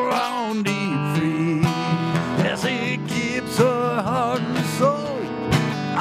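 Band music led by strummed acoustic guitar, with a lead melody line that bends and wavers in pitch.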